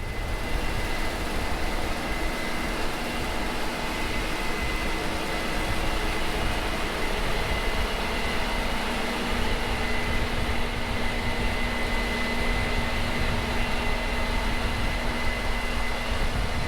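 Heavy harvest machinery running steadily: a constant engine drone with a steady high whine over it.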